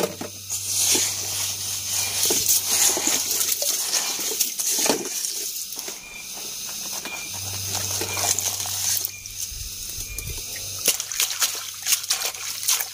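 A hand digging through wet sand and sloshing in muddy water, with squelching, scraping and splashing in quick, irregular bursts.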